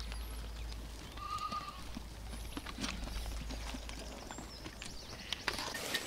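Goats feeding at a trough: scattered light knocks and clicks, with one brief high call about a second and a half in.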